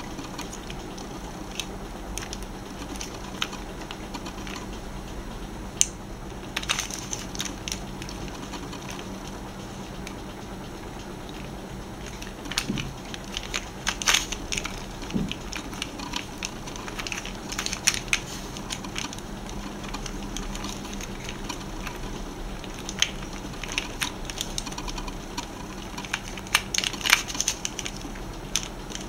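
Plastic pieces of a Pyraminx (pyramid-shaped twisty puzzle) clicking as its layers and tips are turned by hand, in irregular clusters of quick clicks over a steady background hiss.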